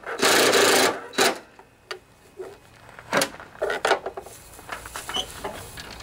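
Cordless drill-driver running for just under a second, backing a bolt out of a riding mower deck's plastic belt cover. It is followed by a few scattered clicks and knocks as the cover and hardware are handled.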